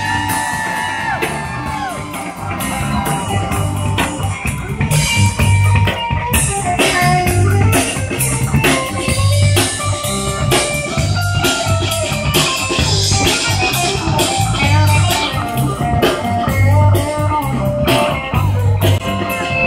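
Live rock band playing, with electric guitar over a drum kit and a steady low beat.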